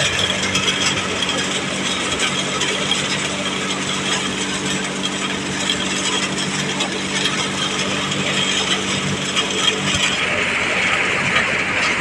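NVT thresher threshing soybeans, driven by a John Deere 5050D tractor: a dense, steady mechanical rattle of the machine and the grain coming through it, over a steady low hum.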